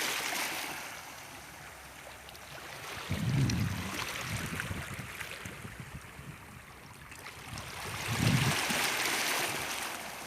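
Water washing in and out at the shore, a steady hiss that swells twice, about three and eight seconds in, each time with a brief low rumble.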